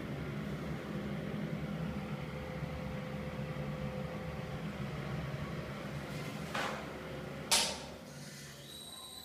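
Cata axial bathroom exhaust fan running with a steady low hum. About six and a half seconds in there is a brief rustle, then a sharp click a second later, after which the hum dies away as the fan runs down.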